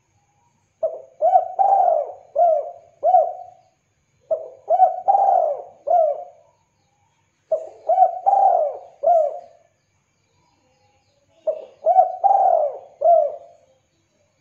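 Spotted dove (tekukur) cooing: four phrases of about five notes each, with short pauses between them.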